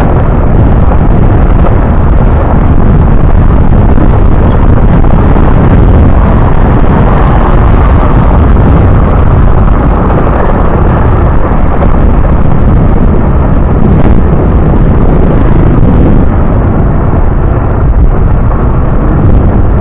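Loud, steady wind buffeting on the microphone mixed with engine and road noise from a moving vehicle, without a break.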